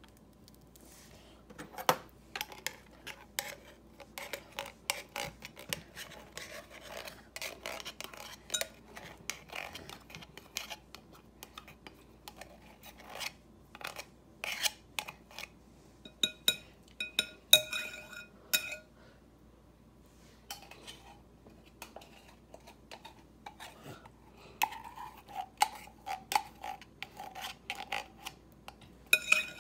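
A metal utensil clinking and scraping against kitchenware, working sweetened condensed milk out of its can into a bowl of whipped cream. The sharp clinks are scattered throughout, loudest and ringing about halfway through, with a short pause a few seconds later.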